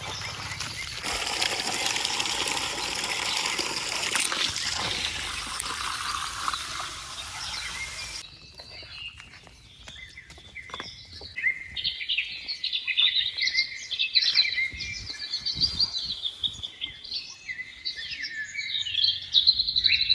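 A steady rushing noise, like running water, cuts off abruptly about eight seconds in, giving way to birds chirping busily in quick, overlapping calls that grow louder toward the end.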